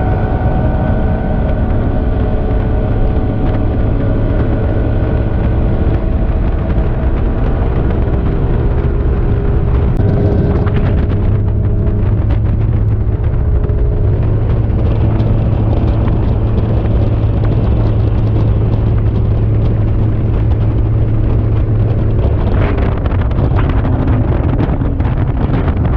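Boat's outboard motor running steadily at speed, with wind buffeting the microphone.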